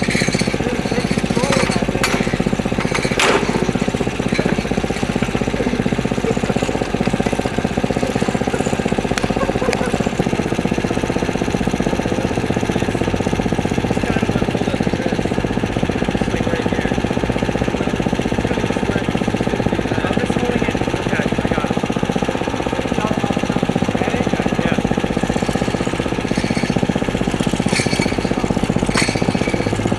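Small 10 hp Briggs & Stratton gasoline engine running steadily while driving the percussion well-drilling rig, with a few sharp metallic clicks.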